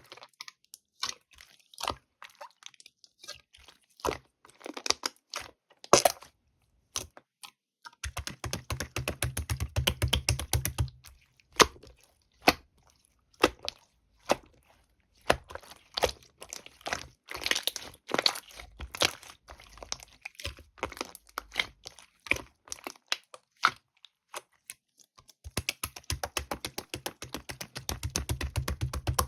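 Hands playing with clear slime: sticky clicks and crackling pops as it is pressed, folded and stretched. There are dense runs of rapid clicks over low thuds, about a third of the way in and again near the end.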